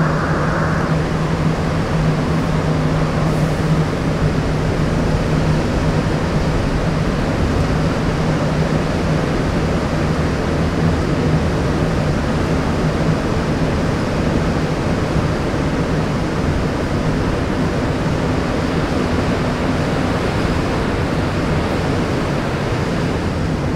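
Montreal Metro MR-73 rubber-tyred train running at speed through a tunnel, heard from inside the car: a steady loud rush and rumble with a low hum underneath. The hum fades about six seconds in and comes back strongly near the end.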